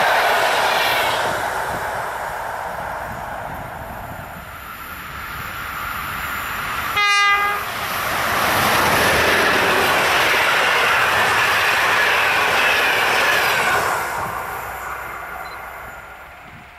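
A blue EP09 electric locomotive hauling Intercity coaches at line speed. Early on, the rush of a passing train's wheels on the rails fades away. About seven seconds in comes one short horn note, the loudest sound. Then the wheels of the next train rise to a steady rush as it passes and fade out near the end.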